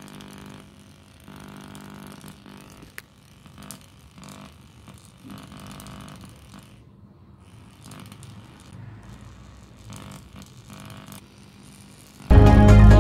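Faint buzzing hum that comes and goes in short patches, typical of a DIY wireless power tester's small speaker buzzing near live mains or a charger, with a few light clicks. Loud electronic background music starts abruptly near the end.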